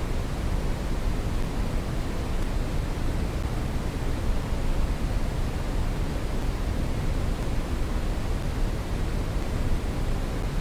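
Brown noise: a steady, even rumbling hiss, strongest in the deep bass and thinning toward the highs, with no change throughout.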